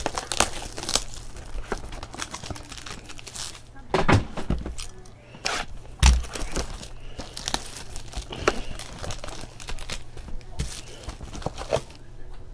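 Plastic shrink wrap being torn and crumpled off sealed trading-card boxes, with irregular crinkling and crackling and a couple of thumps about four and six seconds in.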